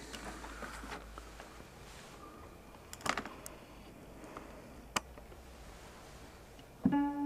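A low room hum with a few sharp clicks and knocks, then near the end a synthesized organ-like note starts: a steady pitched tone with many even harmonics, computed from a mathematical formula graph in the BWise software and played from a keyboard.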